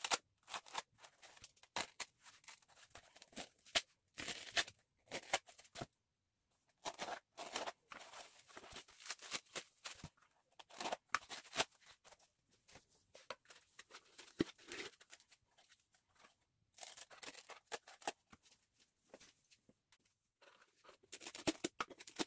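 White packing foam being cut with a craft blade and torn apart by hand: short, irregular scraping and rasping strokes in runs, with brief pauses.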